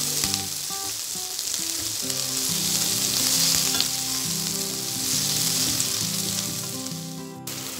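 Chopped shallots, onion, chilies and tomato sizzling in hot oil in a non-stick wok, stirred and turned with a wooden spatula that scrapes the pan. The sizzle briefly cuts out near the end.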